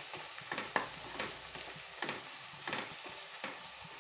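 Sliced onions sizzling in hot oil in a pressure cooker, stirred with a wooden spatula that scrapes across the bottom of the pan in repeated short strokes.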